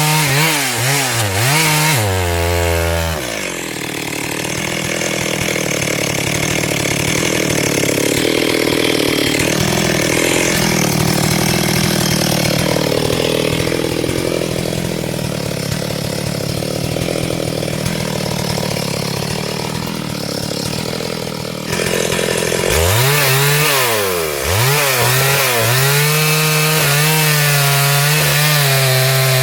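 Two-stroke chainsaw revving, then cutting into wood for about eighteen seconds with a lower, loaded engine note and the rasp of the chain through the log. About twenty-two seconds in, the saw comes free and revs up again in swings, then holds a steady high note.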